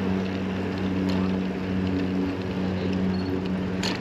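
Riding noise from a pedal-assist e-bike on a paved path: a steady low hum with wind and tyre rush on the handlebar microphone, and one sharp click near the end.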